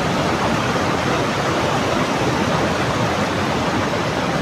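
Muddy floodwater of a swollen river rushing and churning over rock ledges: a loud, steady, unbroken rush of water.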